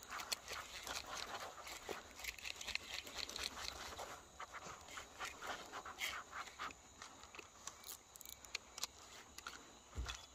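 Faint, irregular small splashes and ticks of water around a kayak on a river, with a low thump near the end.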